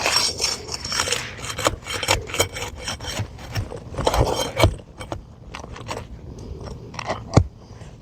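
A metal pry tool scraping and clicking against asphalt shingles and roofing nails as embedded nails are worked loose, in a run of short scrapes and sharp clicks, the loudest click near the end.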